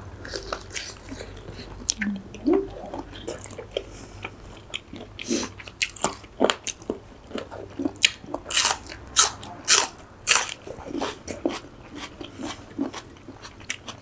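Close-miked eating of spicy seafood papaya salad: mouths biting and chewing, with many short crisp crunches that are loudest and thickest in the middle.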